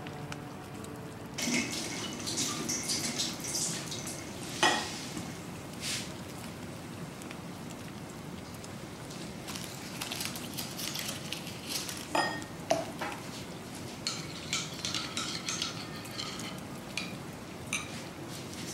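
Dishes and utensils being handled at a kitchen table during food preparation: scattered clinks and clatter, the sharpest clink about a quarter of the way in and a couple more past the middle.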